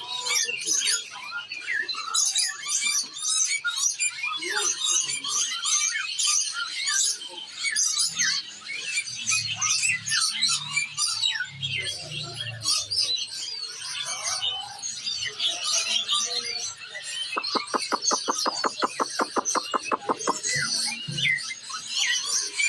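Many caged songbirds chirping and singing at once in a dense, busy chorus of high calls. About 17 seconds in, a rapid pulsing sound of about nine pulses a second runs for nearly three seconds.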